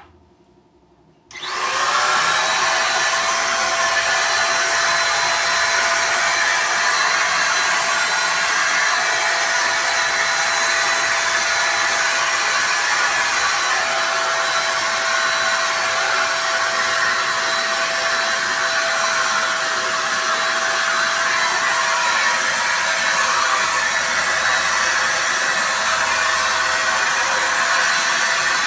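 INGCO handheld electric paint spray gun switched on about a second in and spraying paint steadily: a motor hum over a loud hiss of air and spray.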